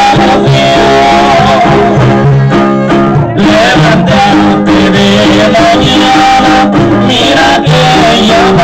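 Loud music with guitars and other plucked strings carrying a melody, played without a pause.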